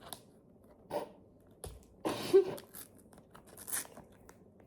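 Foil sticker packets being handled: scattered crinkles and light taps, with a louder rustling burst about two seconds in.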